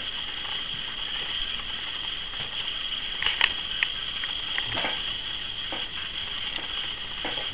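Kittens' paws and claws pattering and skittering on a tile floor as they chase a string toy, with scattered light taps and clicks, the sharpest a little over three seconds in, over a steady hiss.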